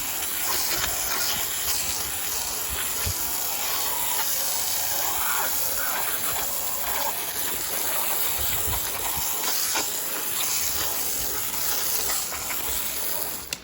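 Water spraying steadily from a hose onto freshly milled eastern red cedar slabs, wetting them down. The spray cuts off near the end.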